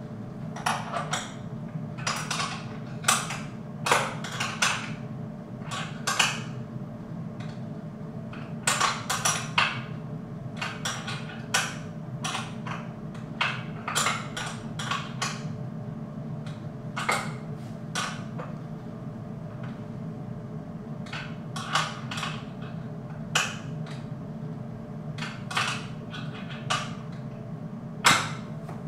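Irregular short metallic clicks and knocks of a wrench and bolts being worked on a steel weight-bench frame during assembly, over a steady low hum.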